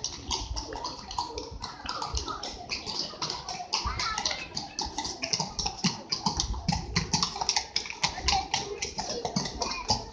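Rapid, even tapping or clicking, about five strokes a second, keeping a steady beat over faint street chatter.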